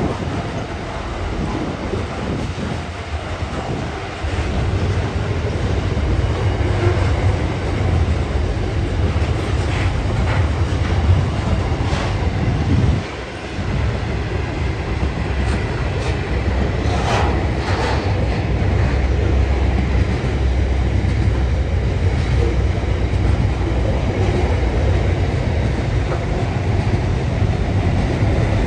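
Container wagons of an intermodal freight train rolling past, a continuous deep rumble of steel wheels on rail. A few brief higher-pitched screeches and knocks come through around the middle.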